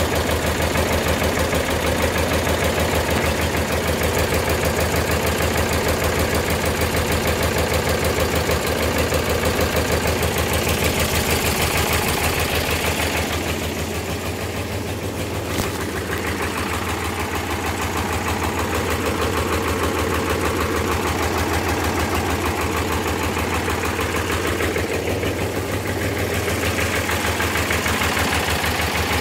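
Ford 3000 tractor's three-cylinder engine idling steadily with an even firing pulse, a little quieter for a few seconds about halfway, where one sharp click is heard.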